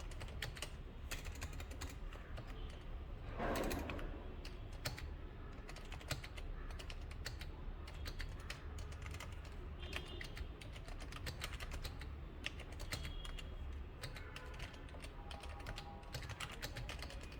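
Typing on a Razer Huntsman V2 keyboard with unmodded Razer Optical Red linear switches: a fast, continuous stream of key clacks, with a louder burst about three and a half seconds in, over a low steady hum.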